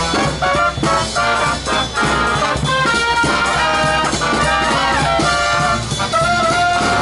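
A brass band with a drum line plays a tune: trumpets and trombones carry held notes over regular drum hits.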